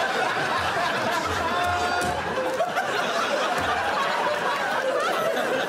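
Studio audience laughing and chattering, many voices at once with no single speaker standing out.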